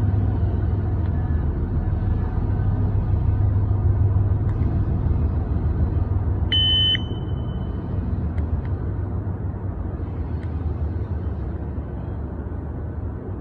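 A Special Pie shot timer gives one short electronic beep about halfway through, over a steady low rumble in the background, with a few faint clicks here and there.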